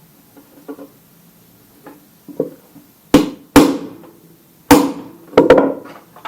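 Hammer striking a center punch to drive out a rivet whose head has been ground off: a few light taps, then about five hard, ringing blows in the second half.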